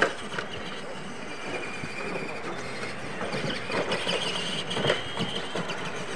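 Electric R/C monster trucks running on a dirt track: a steady whine of motors and gears over tyre noise on the dirt, loudest about four to five seconds in, with a few sharp knocks as the trucks land or hit bumps, the last near the five-second mark.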